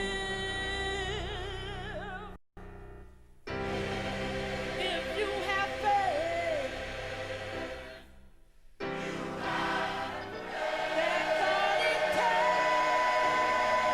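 Gospel choir singing, with the music breaking off briefly twice. Near the end the voices hold a long high note.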